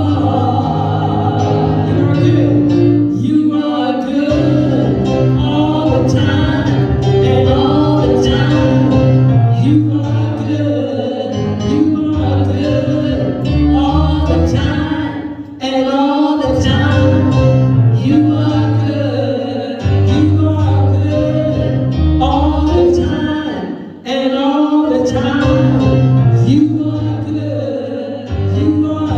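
Gospel choir singing a praise song over a band, with a strong bass line and a steady beat.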